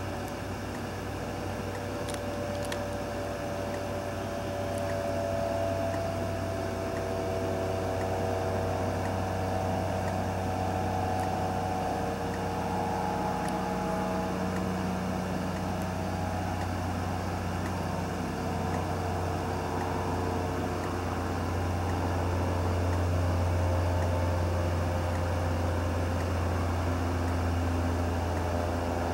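Steady low mechanical hum, like a motor or machine running, with slowly drifting higher tones above it and a gradual rise in loudness.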